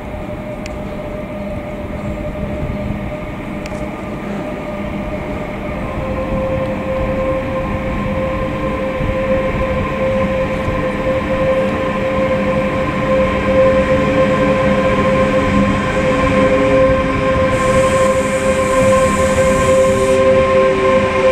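DB class 152 electric locomotive hauling a freight train as it approaches, growing steadily louder: a steady whine from its electric traction drive over the rumble of the wagons, the whine strengthening about six seconds in.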